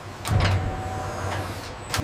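Factory machinery: an electric motor starts with a low hum and a faint steady whine, with a sharp click near the end.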